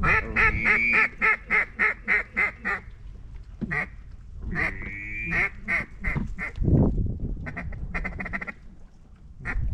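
Mallard duck call blown to work incoming ducks over the decoys. It opens with a fast run of about a dozen quacks, then gives a single quack and a longer drawn-out note, a few more quacks, and a quick burst of chatter near the end.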